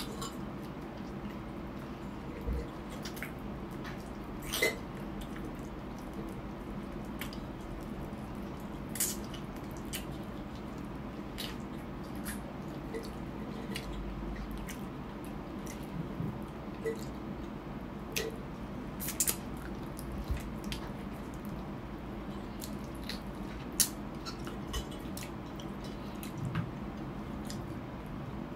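Close eating sounds: wet smacks and sucking clicks while chewing and gnawing adobo-braised chicken feet, coming irregularly every second or so over a steady low background hum.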